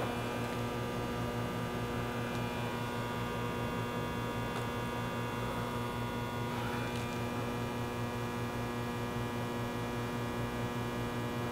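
Steady electrical mains hum: a constant low buzz with a stack of evenly spaced overtones, with a couple of faint ticks near the middle.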